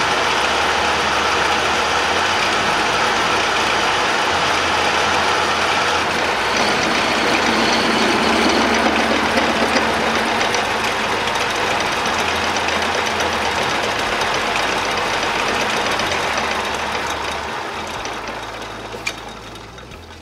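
Metal lathe running while its cutting tool turns down the diameter of a metal rod, a steady dense machining noise. Over the last few seconds it fades as the lathe is switched off and spins down.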